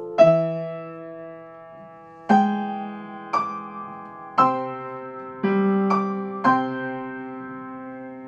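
Slow background piano music: chords struck about once a second, each left to ring and fade.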